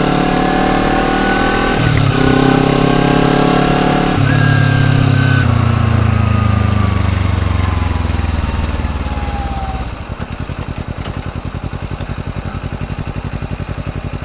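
Kawasaki Ninja 250's parallel-twin engine accelerating with two upshifts, then its pitch falling steadily as the bike decelerates. About ten seconds in it drops to a low, even pulsing at idle.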